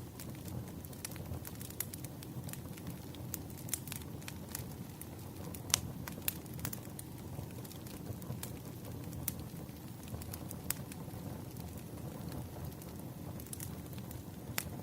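Wood fire burning: a steady low rumble of flames with irregular crackles and pops of burning firewood, a couple of louder snaps about six seconds in.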